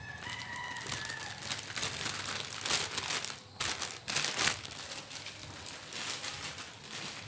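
Plastic wrapping crinkling and rustling as it is handled, in quick crackly bursts that are loudest in the middle.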